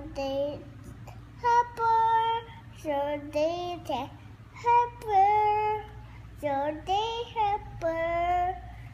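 A young girl singing in a series of short, high-pitched phrases with gliding pitch and brief pauses between them.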